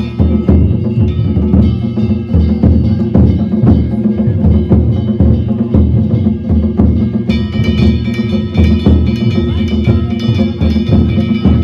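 Danjiri float's narimono: a big taiko drum beaten in a fast, steady rhythm, with small hand-held kane gongs clanging and ringing over it. The gong ringing becomes brighter and louder about seven seconds in.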